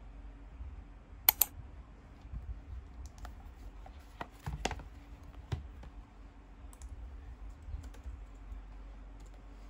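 Handling of a tablet in its case, then typing on an ASUS laptop keyboard: scattered key clicks and taps. A pair of sharp clicks about a second in is the loudest. A faint steady hum runs underneath.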